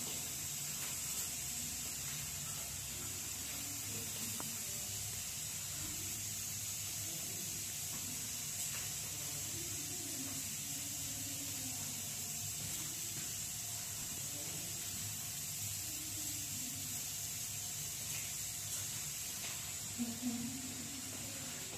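Steady hiss of rain and running water, with faint distant voices underneath.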